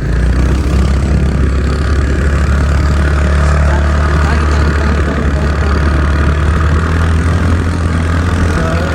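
Motor scooter's small single-cylinder engine running steadily at an even pitch, with no rise or fall in revs.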